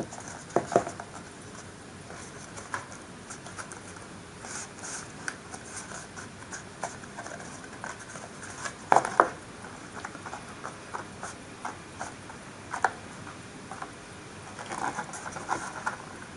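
Hands pressing and handling a glued paper model building: soft paper rustling and scraping with scattered light taps, the loudest a quick pair of taps about nine seconds in.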